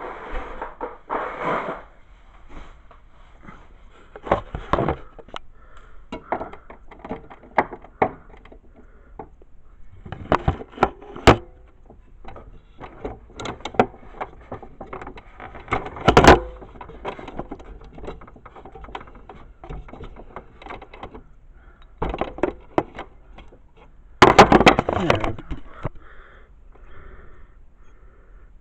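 Scattered clicks, knocks and clatter of hand tools and metal parts being handled while an old dehumidifier is taken apart, with a denser, louder burst of handling noise about 24 seconds in.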